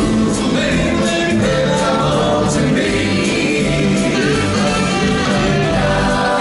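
Doo-wop vocal group singing live with a backing band, over a steady beat.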